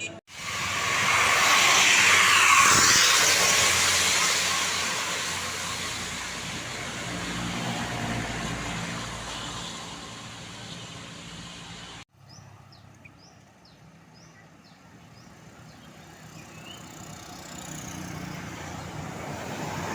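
A road vehicle passes close by, its engine and tyre noise rising quickly and then fading over several seconds. After a sudden cut, quieter road noise slowly builds again as another vehicle approaches near the end.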